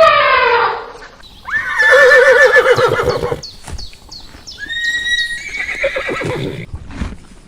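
Horse whinnying: a loud, quavering neigh about a second and a half in, followed by a shorter call a few seconds later. At the very start another animal's call trails off, falling in pitch.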